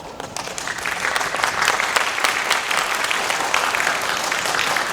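Audience applauding, a dense patter of many hands clapping that swells about a second in and then holds steady.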